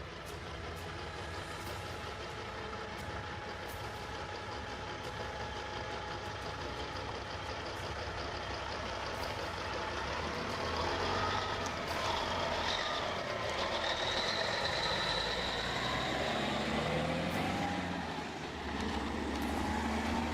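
A heavy truck's engine running as it manoeuvres slowly, with a high squeal lasting a couple of seconds about two-thirds of the way through.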